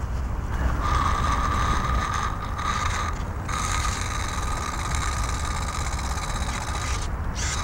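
The boiler and burner of a model steam launch hissing steadily with a thin whistling tone while steam is raised. It starts about a second in, breaks off briefly midway and stops near the end.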